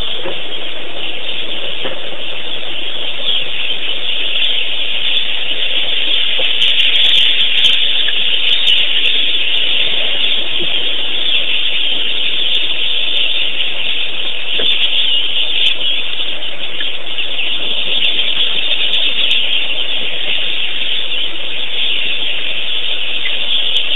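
A steady, loud, high-pitched hiss that keeps an even level throughout, with no clear bird calls standing out.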